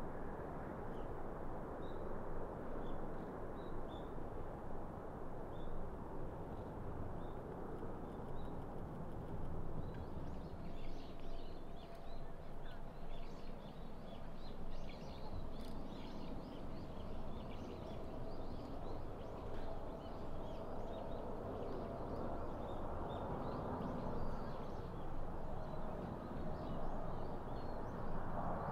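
Steady outdoor rumble of jet aircraft noise, with birds chirping and calling on and off. The jet noise swells near the end as a Boeing 777 airliner on final approach draws close.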